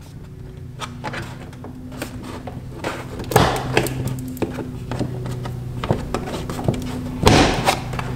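Plastic front wheel-well liner of a BMW F80 M3 being flexed and pulled back by hand: scattered clicks and knocks, with two longer scraping rustles, one about three seconds in and one near the end.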